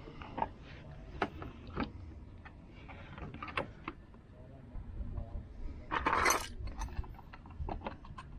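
Scattered small metallic clicks and clinks of screws and hand tools being handled while fitting side-skirt trim with self-tapping screws. A short harsh burst, the loudest sound, comes about six seconds in.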